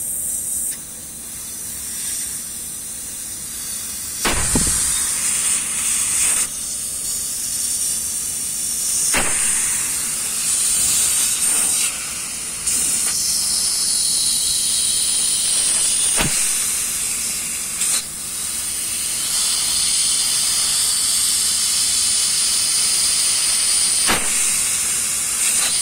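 Pressurised R410A refrigerant hissing out of the open end of a split air conditioner's small liquid pipe while the line is flushed: a loud high hiss that surges and drops several times as a fingertip over the pipe end is held and released. The flushing is meant to clear the small pipe, which was not getting cold.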